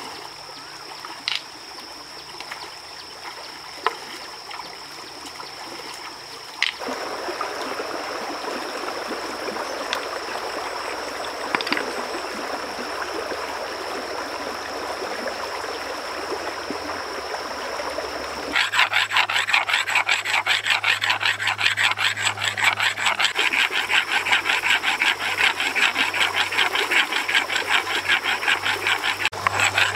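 Running stream water with a few sharp clicks of stones knocking. From a little past halfway, a flat stone blade is ground back and forth on a wet boulder: a fast, steady run of rasping stone-on-stone strokes that becomes the loudest sound.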